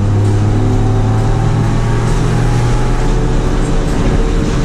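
Honda Civic hatchback's four-cylinder engine running at a steady cruise, a loud, even drone that holds its pitch.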